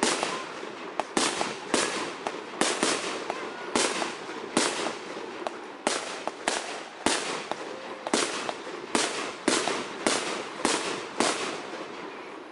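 Fireworks display: aerial shells launching and bursting in a rapid, uneven series of about twenty sharp bangs, each trailing off in a short echo.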